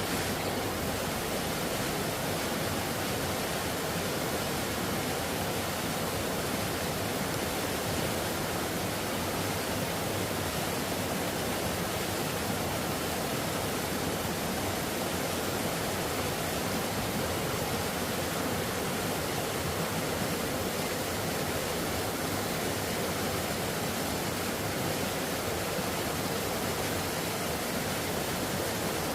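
Mountain valley stream rushing, a steady, unbroken noise of flowing water.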